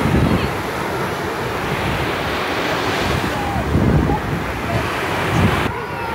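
Wind buffeting the microphone over the steady wash of small waves on a beach, with faint voices in the background.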